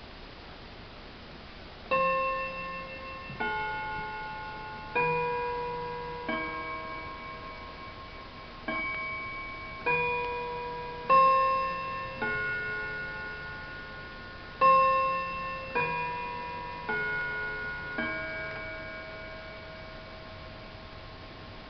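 Sorel table chime clock playing its chime: twelve struck, ringing notes in three phrases of four, each note fading slowly before the next.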